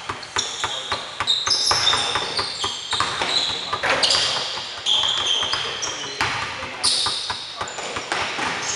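Basketball game on a hardwood gym floor: sneakers squeal in many short, high chirps as players cut and stop, mixed with sharp knocks of the ball bouncing.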